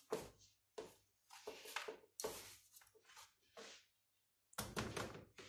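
Faint, scattered light knocks and scrapes of kitchen utensils being handled: metal tongs, a plate and a metal roasting pan moved about on a stovetop as crumbed pork pieces are laid in the pan.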